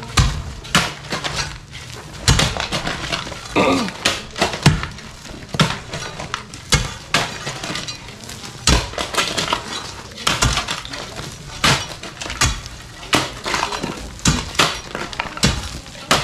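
Irregular series of sharp knocks with crunching, breaking sounds between them, about one or two strikes a second.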